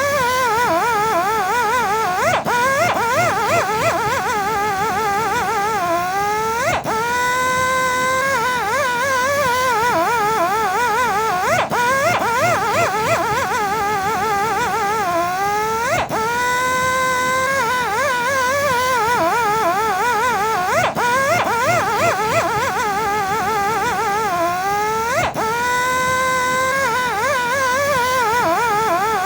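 Electric buffing and polishing machine running with a loud, wavering motor whine. Every four to five seconds its pitch sags and then sweeps back up.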